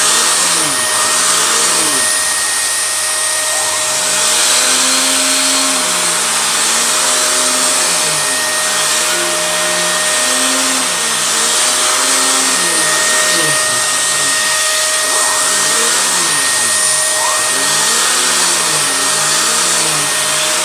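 Vacuum cleaner running steadily, its nozzle being drawn over a cat's fur. A constant whine sits over the rushing noise, and the lower part of the sound shifts slowly as the nozzle moves.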